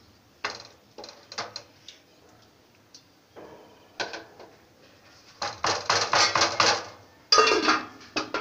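A spatula scraping and clattering against a metal pan while stirring cooked vegetables: a few single strokes early, then a fast, loud run of scraping in the last few seconds.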